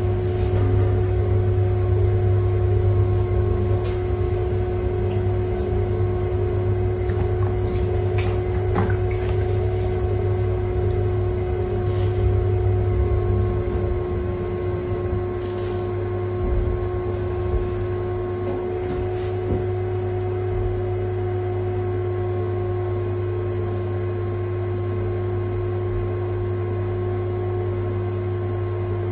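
Electric potter's wheel motor running with a steady hum as the wheel spins, while a sponge held against the wet clay bowl soaks up water, with a few light knocks along the way.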